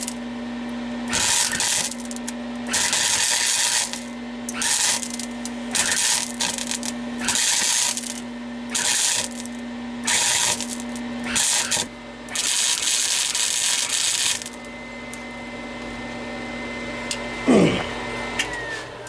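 Flux-core MIG welder arc crackling in a run of about nine short welds, the last one the longest, with the welder's steady hum between them. Near the end a brief squeal slides down in pitch.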